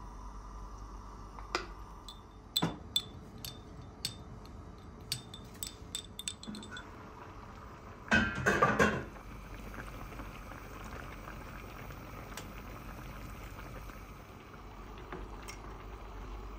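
Cookware and utensils at a stove: a run of light clinks of a spoon against pots, a lid and a small glass, then a brief louder clattering burst about eight seconds in, over a steady low hum.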